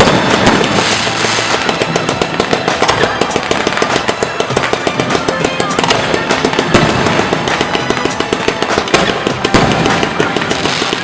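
Fireworks going off in a dense, continuous barrage of rapid crackles, with a few heavier bangs standing out about seven and nine and a half seconds in.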